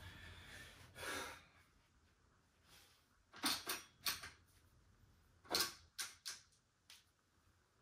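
Adjustable dumbbells clicking and clunking as they are handled and lifted from their cradles: a series of sharp knocks, some in quick pairs, from about three and a half to seven seconds in.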